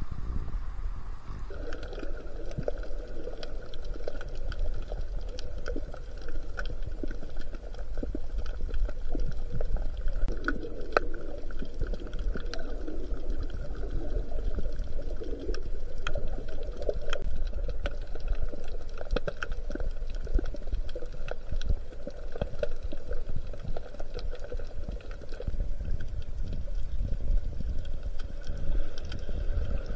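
Sea water heard through a microphone held under the surface while snorkeling: a muffled low rumble of moving water with many small scattered clicks and crackles.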